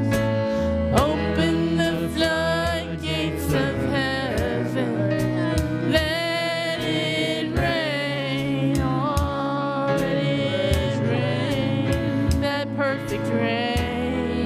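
Gospel worship music: a singer's voice carries a slow melody over a band, with sustained bass notes and regular drum and cymbal hits.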